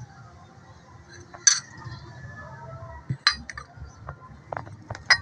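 Kitchenware being handled: a few sharp clinks of dishes and glassware knocking together as they are taken from a dish rack and set down on a table.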